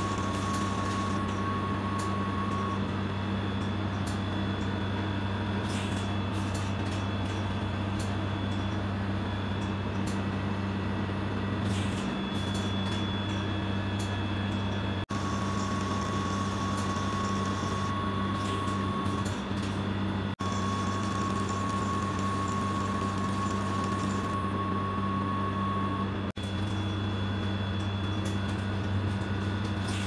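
ABL80 FLEX blood gas analyzer running its sensor initialization: a steady low machine hum with a thin high whine that starts and stops a few times as it pumps solution through the new sensor cassette.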